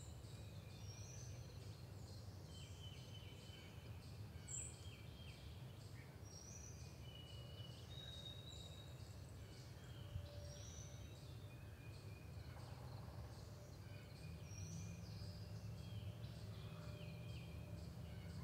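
Woodland songbirds calling in many short, high chirps and whistled notes over a steady low background rumble.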